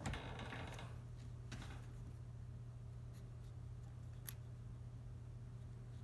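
Faint handling of a 3D-printed plastic tubular lock pick body: a short scraping rustle as it is picked up, then a couple of faint clicks, the last about four seconds in, over a low steady hum.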